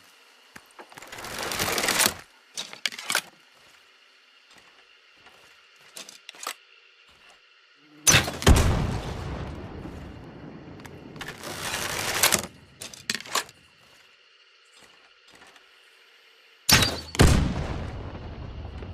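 Crossbow sounds: two loud shots, each a sharp snap followed by a heavy thump that dies away over a second or two. Between them come rising rushing swells that stop abruptly, each followed by a couple of sharp clicks.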